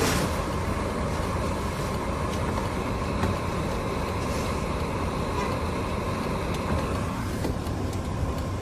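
Steady low rumble of a Land Rover running, heard from inside the cabin.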